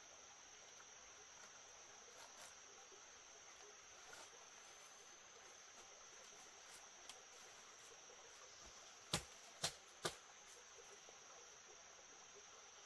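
Faint, steady, high-pitched insect chirring in the forest, with three sharp knocks about half a second apart roughly three-quarters of the way through.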